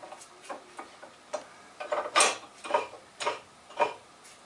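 Metal clicks from an antique GM Yost woodworking vise's jaw mechanism as it is adjusted out of parallel. The clicks start faint and grow sharper after about two seconds, coming about twice a second.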